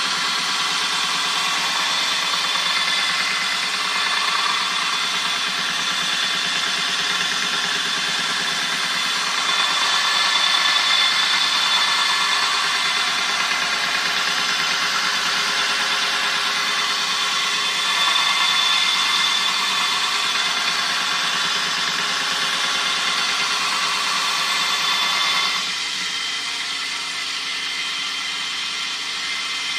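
Homemade belt sander driven by a 550 W, 2800 rpm electric motor, running steadily with a whirring belt. It swells louder twice and drops to a quieter run near the end.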